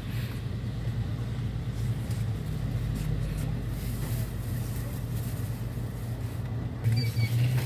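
Cabin noise inside a moving Mercedes-Benz Sprinter minibus: a steady low engine and road drone that grows louder about seven seconds in, with a brief high beep at that point.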